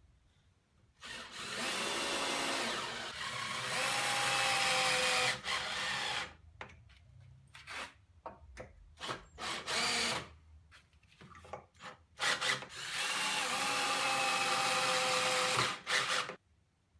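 Power drill driving screws into a wooden frame: two long runs of about four seconds each that climb in pitch as the motor speeds up, with short bursts and knocks between them.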